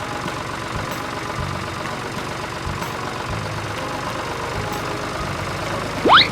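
A vehicle engine idling steadily, with a few soft low thumps. Just before the end a run of quick rising chirps begins.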